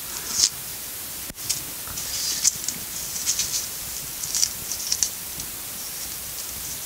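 A small knife cutting and scraping an onion held in the hand, in short irregular strokes, over a steady faint hiss.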